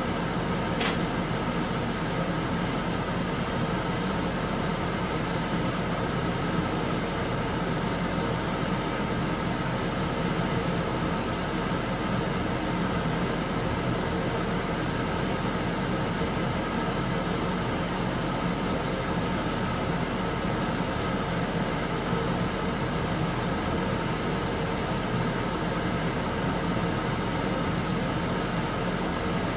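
A wok of beef fat pieces boiling hard in water over a gas burner, the early wet stage of rendering tallow, heard as a steady rushing noise under a constant hum. A single sharp click about a second in.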